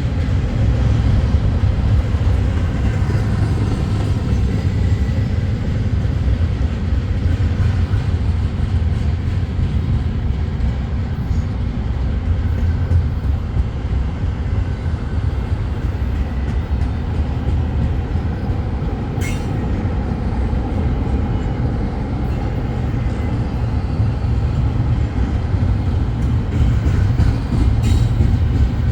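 Intermodal freight train's cars rolling past in a steady, heavy rumble, with a single sharp clank about two-thirds of the way through.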